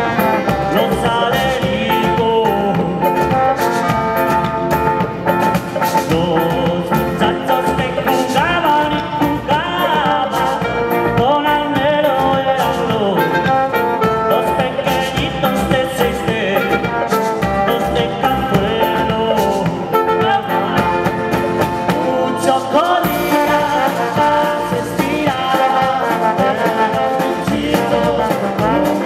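Live folk band playing an upbeat traditional Spanish tune: trombone and clarinet over acoustic and electric guitars, with drum kit, cymbals and wooden percussion keeping the beat.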